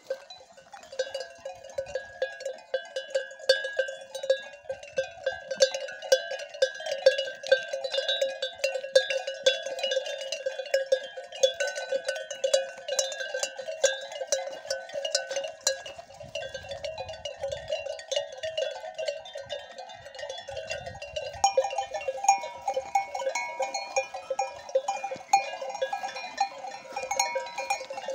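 Bells on a flock of sheep clanking irregularly, several ringing at once. About twenty-one seconds in, the mix of bell tones changes.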